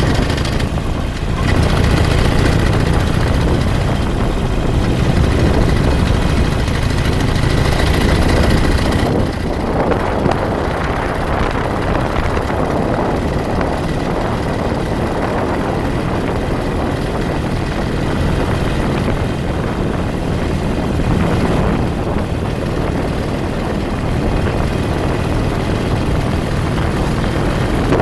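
A vehicle driving at road speed: a steady engine and road rumble mixed with wind buffeting the microphone, easing slightly about nine seconds in.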